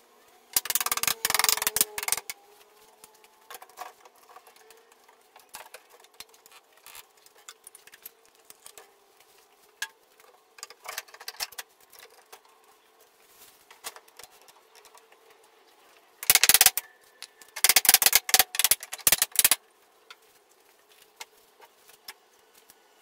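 Clamps being tightened on a glued-up solid-wood tabletop: bursts of rapid ratcheting clicks from ratchet straps and trigger bar clamps, once about a second in and twice more near the end. Light scattered knocks and handling clicks in between.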